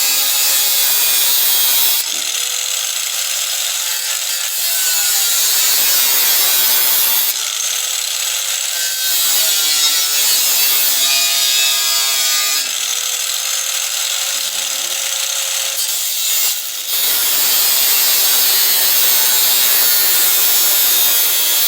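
Power tool cutting the steel of an ammo can: a loud, continuous cutting noise whose tone shifts every few seconds.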